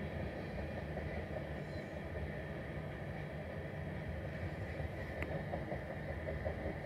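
CSX freight train's tank cars rolling past, a steady rumble of wheels on the rails, with one small click about five seconds in.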